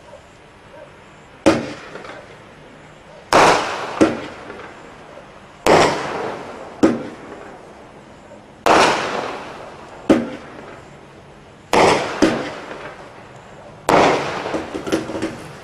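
Standard Fireworks 117-shot single-ignition multi-effect cake firing its shots in sequence: about ten sharp bangs, one every one to two seconds, each fading away over a second or so.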